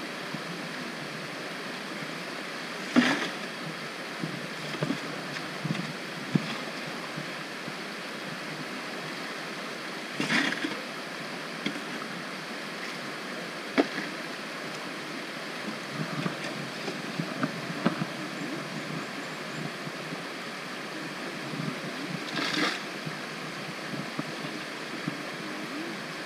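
Steady rush of a rocky creek. Over it come occasional sharp knocks and short clattering bursts, several seconds apart, as a hand digging tool strikes and scrapes stones in shallow water.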